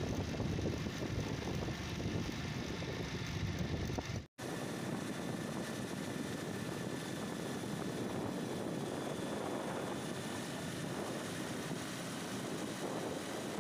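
Steady rush of wind and road noise from a moving motorcycle, with low engine rumble beneath. It cuts out for an instant about four seconds in, then carries on with less of the low rumble.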